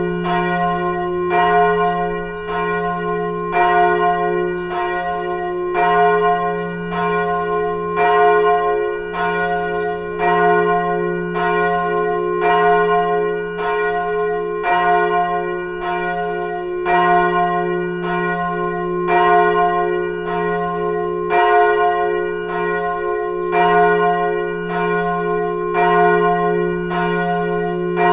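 Church bell ringing, struck in an even rhythm about once a second, alternately louder and softer, its deep hum ringing on between strokes.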